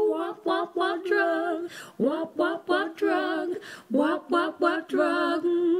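Background music: a female voice singing short wordless phrases, with little instrumental backing.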